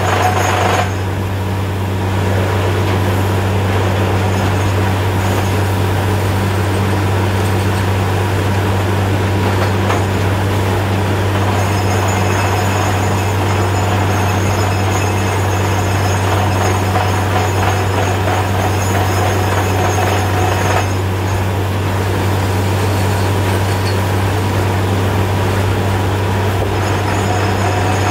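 Truck-mounted borewell drilling rig running steadily while drilling, its engine and air compressor giving a loud, constant low drone. The loudness dips slightly twice, about a second in and again around 21 seconds.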